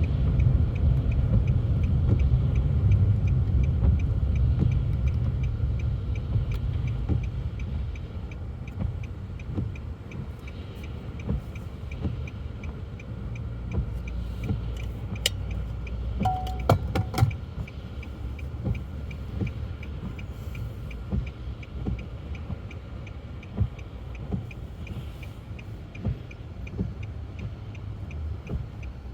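Car heard from inside the cabin, its low running rumble fading over the first several seconds as it comes to a stop and then idling quietly, with a turn-signal indicator ticking steadily throughout. A few sharp clicks come about two-thirds of the way in.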